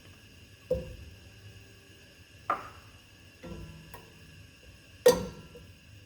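Kitchenware being handled: four knocks of a pot, pan or dishes being set down or bumped, each with a short ring, the loudest near the end.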